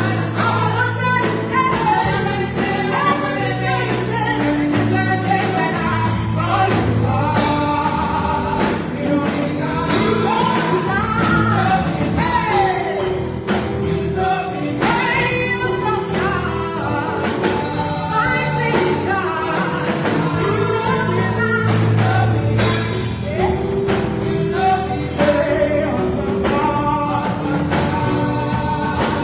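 Gospel music: voices singing together over a band with a steady bass and beat.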